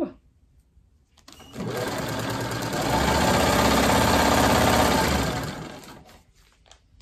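Vintage black sewing machine stitching a seam. It starts about a second and a half in, speeds up to a fast, even run of needle strokes, then slows to a stop near the end, with a few faint clicks after.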